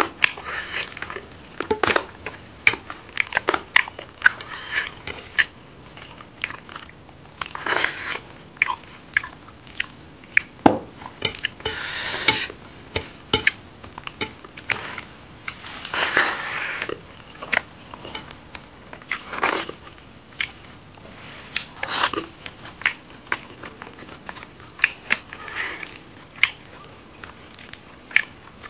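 Close-miked eating sounds: chewing and lip-smacking on pork curry, mustard greens and rice eaten by hand. There are many irregular wet clicks and a handful of longer, wetter bursts.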